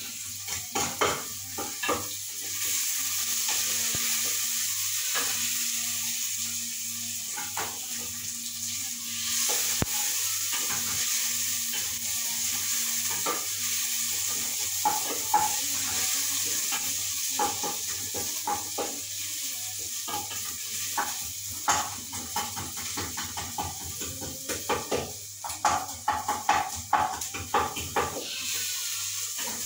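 Onions and chili frying in an aluminium pot, sizzling steadily, while a wooden spoon stirs through them, scraping and knocking against the pot. The knocks of the spoon come thick and fast in the second half.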